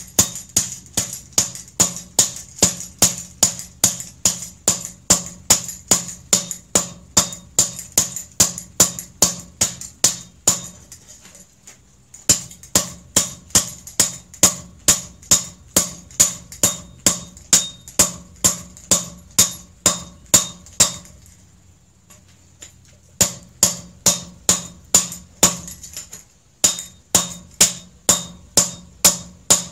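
Hand hammer striking a hot steel adze blade on a small anvil block, a steady run of ringing metal blows about two to three a second. The blows stop twice for about two seconds and once more briefly. This is forging to dress the adze, smoothing the ground ridges and curve for a forge finish.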